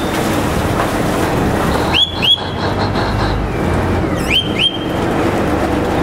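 A river boat's signal whistle blown in two quick double blasts, short and shrill, about two seconds in and again about two seconds later. Under them runs the steady sound of the boat's engine and churning water as it docks. Whistle blasts like these are the crew's signals to the pilot for docking manoeuvres.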